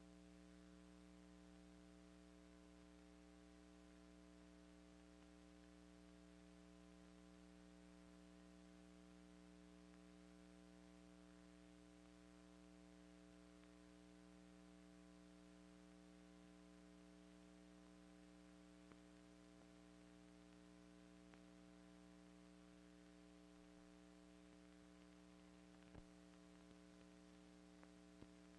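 Near silence with a faint steady electrical hum and its overtones. A couple of soft clicks come near the end.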